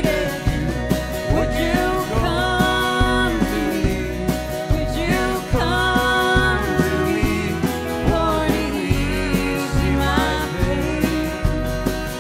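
Live country band playing: acoustic guitars, bass and drums keep a steady beat under a sliding lead melody line.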